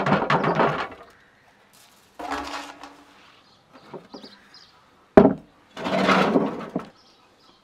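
Crusty baked bread bowls pulled off the glass jars they were baked on, the crust crackling and scraping against the glass in three bursts, with one sharp knock about five seconds in.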